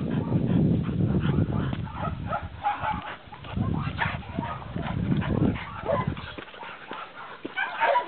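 Two dogs play-fighting, growling in rough bursts with short whines and yips in between.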